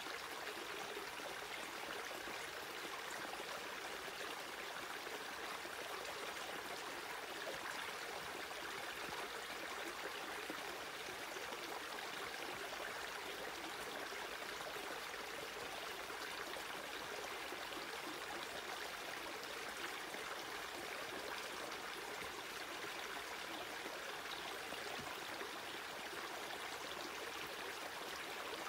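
Small rocky creek running over stones: a steady, even rush of flowing water.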